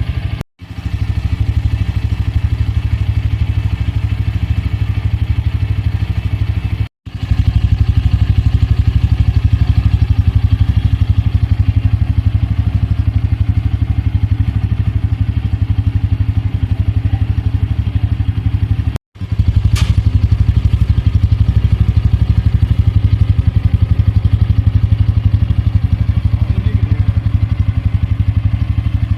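Bajaj Pulsar N150's single-cylinder engine idling steadily through its underbelly exhaust, a low, even exhaust pulse at a constant pitch. The sound drops out to silence three times, very briefly.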